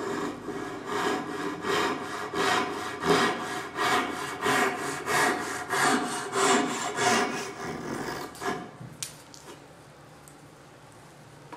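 Japanese backsaw cutting a dovetail into a board end: steady rhythmic sawing, about one and a half strokes a second, which stops about eight and a half seconds in. A few faint clicks follow near the end.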